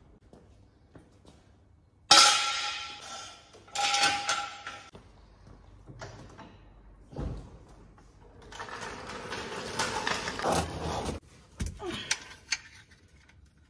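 Workshop gear being moved across a concrete floor, an oil drain pan and a mechanic's creeper: two loud scrapes with a squeal in them about two and four seconds in, a longer rolling scrape from about eight and a half to eleven seconds in, and a few knocks and clicks.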